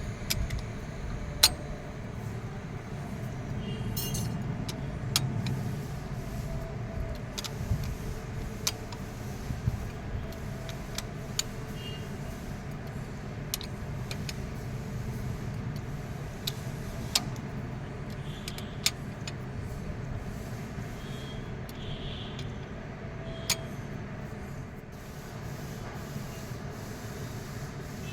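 Tools and metal parts clinking now and then during engine repair work: about a dozen sharp, separate clicks over a steady low hum.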